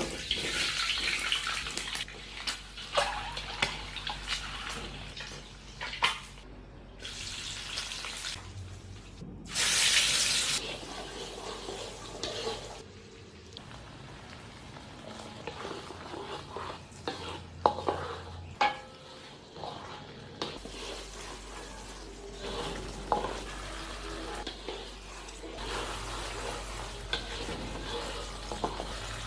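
Kitchen food-preparation sounds: short bursts of running or pouring water and scattered clinks and knocks of utensils against bowls and pans.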